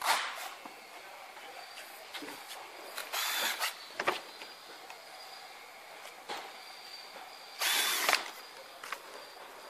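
Cordless drill-driver run in two short bursts of about half a second each, about 3 s and 7.5 s in, driving screws into a shower tray's support frame. A sharp knock comes at the very start.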